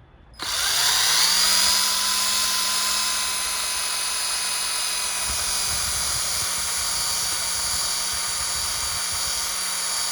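Electric drill spinning a 3-inch fine abrasive wheel, lightly buffing faded black plastic on a motorcycle turn signal switch. It starts about half a second in, rises in pitch as it spins up, then runs steadily at speed.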